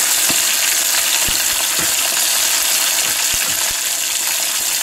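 Pike livers sizzling as they fry in hot oil in a skillet: a steady hiss with scattered sharp pops and crackles.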